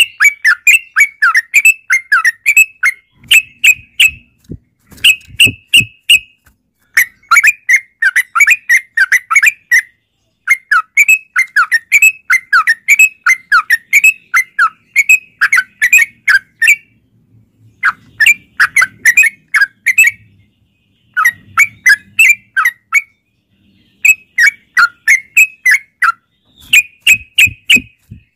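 Yellow-vented bulbul (trucukan) singing a long, rapid run of chattering whistled notes, several a second, in runs broken by short pauses.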